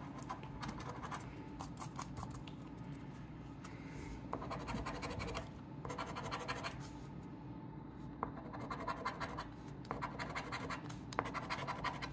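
A coin scratching the coating off a paper scratch-off lottery ticket, in bursts of quick back-and-forth strokes with short pauses between them.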